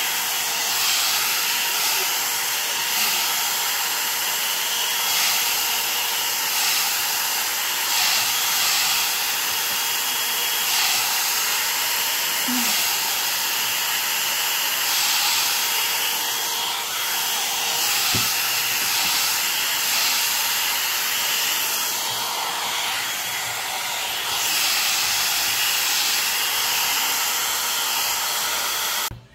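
3-in-1 hot air brush (a combined dryer, straightener and volumiser) running steadily as it is drawn through damp hair: a continuous rush of blown air with a faint steady motor whine. It cuts off suddenly near the end.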